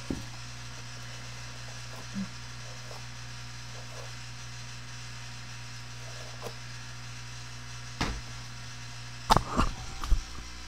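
Steady low electrical hum with faint hiss from a low-quality microphone, with a few faint clicks and knocks. A sharper bump comes about eight seconds in, then a short cluster of louder knocks and rustles near the end.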